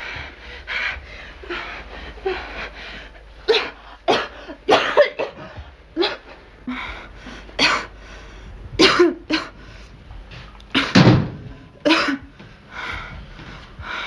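A young woman in drug withdrawal coughing and gasping in harsh fits: about a dozen short bursts at irregular intervals, the loudest about eleven seconds in.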